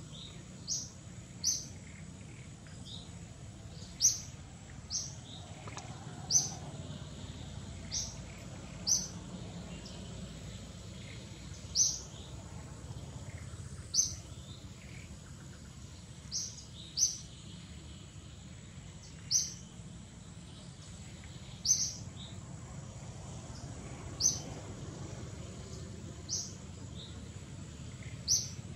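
A bird's short, sharp, high chirps, repeated every one to three seconds, over a steady low outdoor background rumble.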